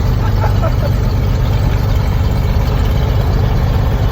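The Cessna 182S's six-cylinder Lycoming engine idling steadily with the propeller turning, just after start and still cold, with oil pressure still coming up.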